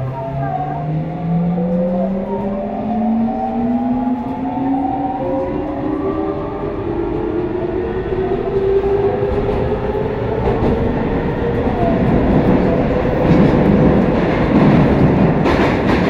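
The GTO-thyristor VVVF traction inverter and motors of Tobu train 9152 whining as the train accelerates, heard from inside the passenger car. Several tones climb together in pitch over the first ten seconds, then the wheel-on-rail running noise grows louder toward the end.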